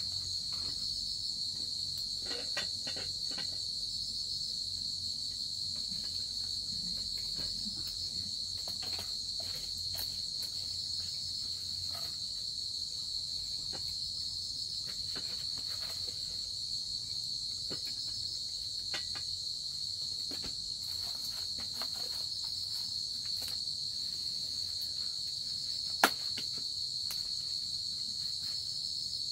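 Steady, high-pitched trilling of an insect chorus with no break. Scattered light clicks over it, and one sharp knock about 26 seconds in.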